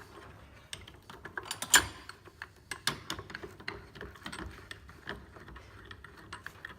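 Optitec wheel being wound up by hand, its winding mechanism giving a run of irregular metallic clicks and ratchet-like ticks, with one sharper knock a couple of seconds in.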